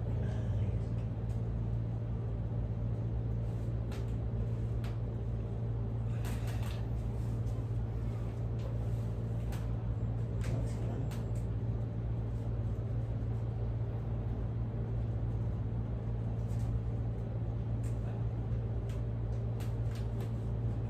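Steady low machine hum with a few faint clicks and brushing sounds.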